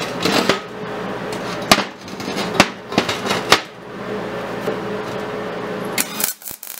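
Steel horseshoe-and-railroad-spike workpiece knocking and clanking on the welding table as it is tipped onto its side, with four sharp metallic knocks. Near the end, a short burst of MIG welding arc crackle as a tack weld is struck.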